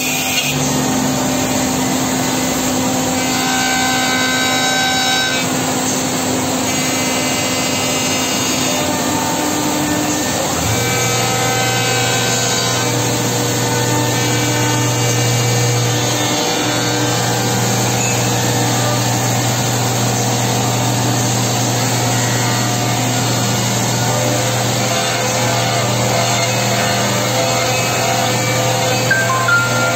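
Multi-spindle CNC woodworking machining center running and cutting wooden parts. Steady machining noise with whining spindle tones that come and go, and a low hum that sets in about a third of the way through.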